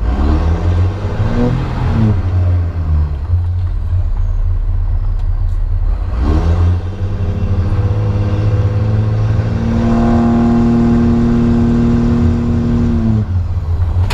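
Diesel pickup's engine and smoke-stack exhaust heard from inside the cab while driving: the revs climb twice as it pulls through the gears, then hold a steady higher drone before dropping near the end.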